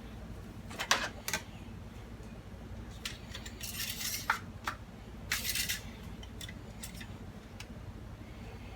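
Light clicks and clinks of small hard objects being handled, with two short scraping rustles, over a low steady hum.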